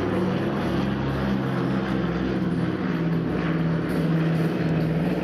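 Twin-engine propeller aircraft flying overhead: a steady drone of its piston engines and propellers, the pitch wavering slightly as it banks.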